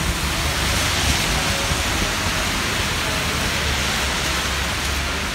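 Steady rain hiss with a low rumble underneath.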